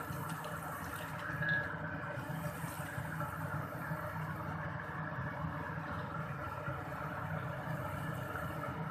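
Homemade vacuum cleaner, built from an old blender motor in a paint bucket, running steadily with an even whoosh of air.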